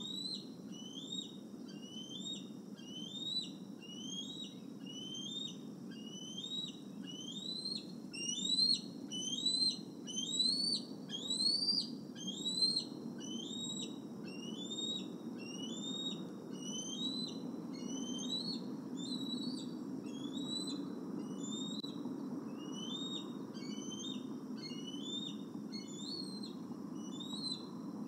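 Young bald eagles' repeated food-begging calls: thin, high whistled notes that each slide upward, about two a second without a break. They are loudest and climb highest about a third of the way through. A steady low hum runs underneath.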